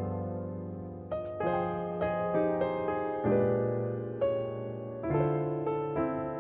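Background music: a gentle piano piece with notes and chords struck about every half second to second.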